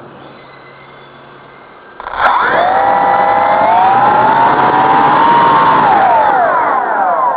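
Homemade 520 mm quadcopter's electric motors and propellers spinning up suddenly about two seconds in, a loud whine of several close pitches that holds fairly steady, then slides down in pitch near the end as the throttle comes off.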